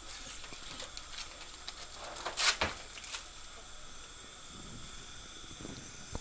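Faint steady hiss of dental operatory equipment, with a short louder hissing rush about two and a half seconds in and a few light clicks.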